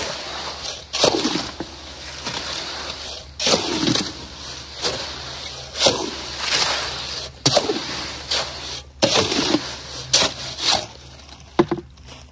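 A shovel turning and scraping through wet concrete in a wheelbarrow: hand-mixing concrete, a wet sloshing scrape with each stroke, roughly one a second, stopping near the end.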